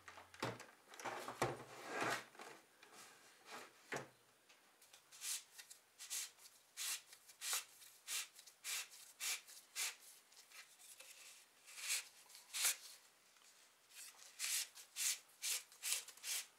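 Quiet handling noise: plastic casings rubbing and knocking lightly on a wooden workbench. From about five seconds in comes a run of short rustling scrapes as a flexible air-conditioner duct hose with a plastic end fitting is handled.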